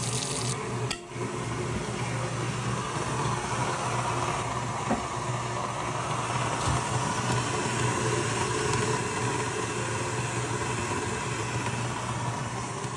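KitchenAid stand mixer running a grain mill attachment, grinding grain: a steady motor hum under a dense grinding rasp.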